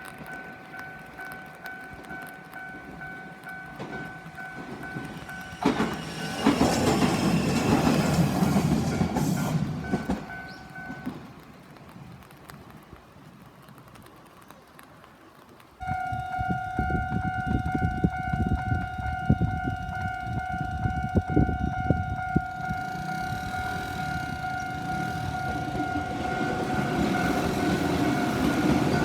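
Railway level-crossing alarm ringing steadily while a train passes loudly. About halfway through it cuts suddenly to another crossing whose alarm rings on as a train rolls through, its wheels clacking over the rail joints.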